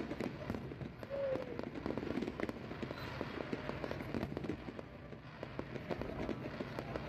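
Aerial fireworks display: a dense, unbroken run of quick bangs and crackles from bursting shells and crackle effects.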